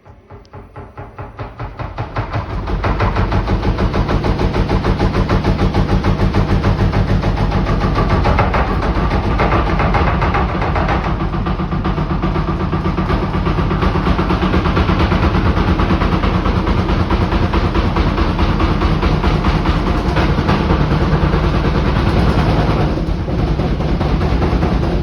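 Washing machine shaking and jumping in its spin, with a fast, even knocking that builds up over the first few seconds and then holds steady and loud. A machine that jumps like this in the spin usually has an out-of-balance drum.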